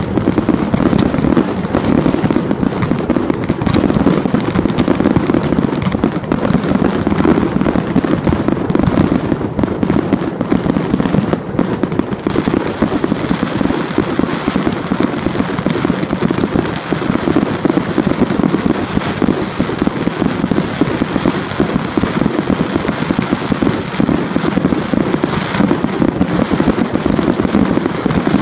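Fireworks barrage from a ground-fired multi-shot battery: a rapid, unbroken string of launch thumps and aerial bursts, with no pauses.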